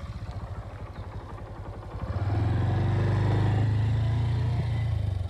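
An engine running with a fast, even pulse, swelling louder about two seconds in and easing off near the end.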